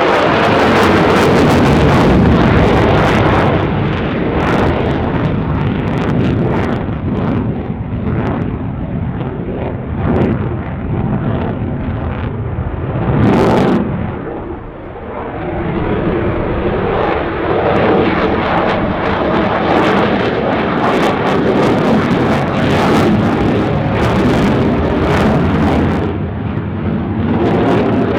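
Jet engine noise of an F-35A fighter flying a display, its single F135 afterburning turbofan loud and continuous, easing briefly about halfway through and then building again.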